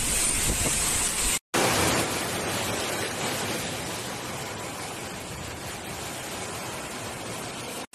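Heavy rain hissing with wind on the microphone, then after an abrupt cut about a second and a half in, a steady rush of fast floodwater pouring down a street.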